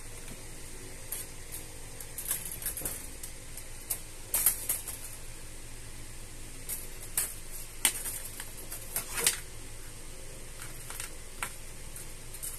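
An open umbrella being pawed and batted by a kitten: irregular light clicks, taps and rustles from the canopy and ribs, in scattered clusters, over a steady low background hum.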